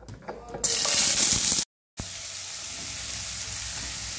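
Shredded kohlrabi dropped into hot oil in a non-stick kadai: a few light knocks, then a loud burst of sizzling about half a second in. After a brief break it settles into a steady, quieter sizzle as the strips fry.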